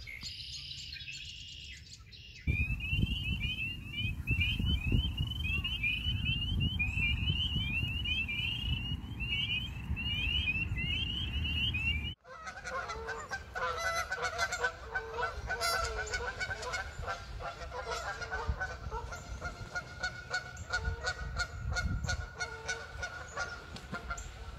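A chorus of small frogs in a cattail marsh: short, high, rising calls repeated many times a second over wind rumble on the microphone. About halfway in, the sound cuts to geese honking over and over on the pond.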